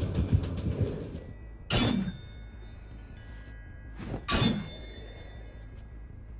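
Katana sword sound effect: two sharp metallic blade strikes about two and a half seconds apart, each leaving a ringing metal tone that dies away slowly. Low thudding fades out in the first second.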